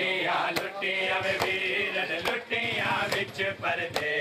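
A group of men chanting a noha, kept in time by sharp hand-on-chest slaps of matam (ritual chest-beating), about one strike a second.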